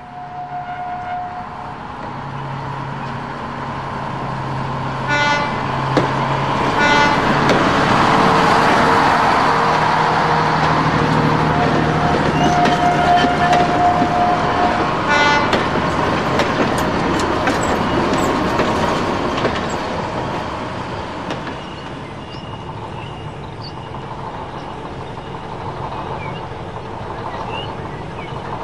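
Busy street traffic ambience: a steady wash of traffic noise that swells through the middle, with short horn toots about five, seven and fifteen seconds in and one longer held horn note a little before the last.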